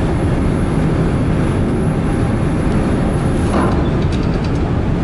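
Steady low rumble of wind buffeting the microphone on a ferry's open upper deck, with a few faint clicks about four seconds in.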